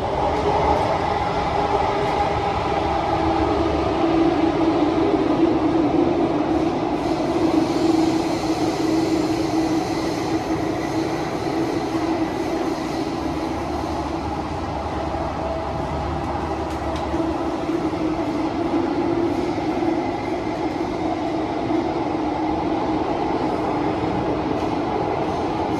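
Inside a Kawasaki–CRRC Qingdao Sifang CT251 metro train car running at speed: a steady rumble of the moving train, with a humming tone that swells and eases a little.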